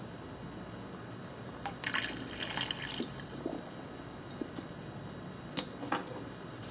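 Water poured from a beaker onto soil in a plastic tub, trickling and splashing, with a louder spatter about two seconds in and two sharp drips near the end.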